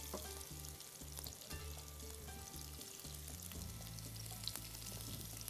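Onion, garlic and green peppers frying in oil in a frying pan, a steady sizzle with a few faint clicks.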